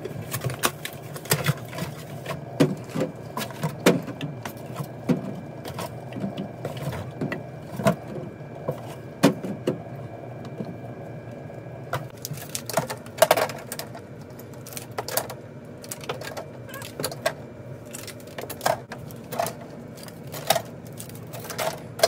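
Juice bottles and other groceries being set down and moved about on refrigerator shelves: irregular knocks and clatter, at times several a second. Under it runs a faint steady whine that stops about halfway through.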